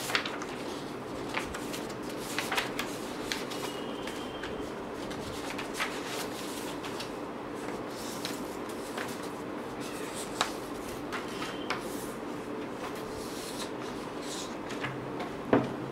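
Sheets of paper being leafed through and shuffled, with scattered crinkles and light taps and one sharper tap near the end, over a steady faint hum.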